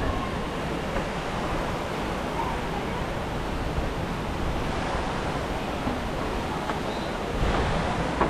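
Steady rush of running water, a little louder near the end.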